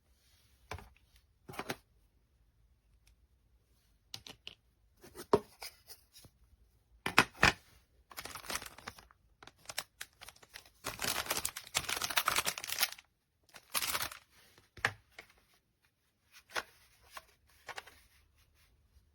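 Handling noises from a toy bow-and-arrow set and its packaging: scattered clicks and knocks, with two longer stretches of crinkling and tearing about eight seconds in and again from eleven to thirteen seconds in.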